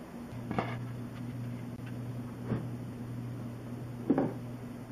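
A thin sheet of hardboard being handled and laid down on a cutting mat: three short knocks, the loudest near the end, over a steady low hum.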